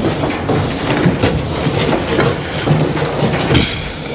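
A motorcycle being wheeled off a trailer: a steady crunching, rattling noise with a few sharp knocks.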